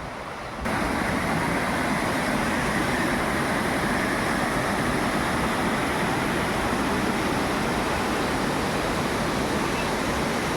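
Steady rush of flowing river water, stepping up louder a little under a second in and then holding even.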